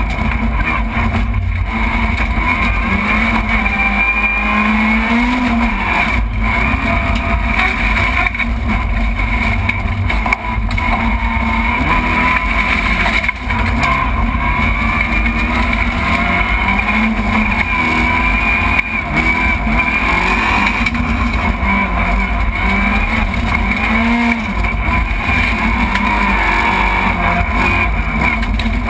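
Rally car engine running hard on a special stage, heard from inside the stripped, roll-caged cabin, its pitch rising and falling with the throttle and gear changes.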